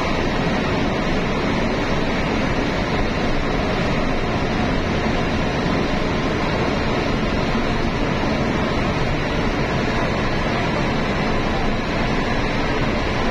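Steady road noise of a vehicle travelling at highway speed: an even rush of tyre and wind noise with a low rumble underneath.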